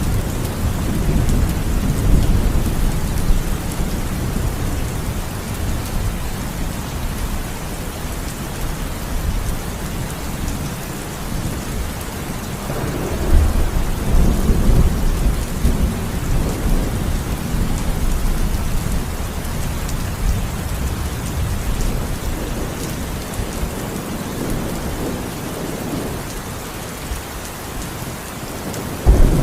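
Heavy rain falling steadily with rolling thunder: low rumbles swell near the start and again about halfway through, and a louder burst of thunder breaks in suddenly at the very end.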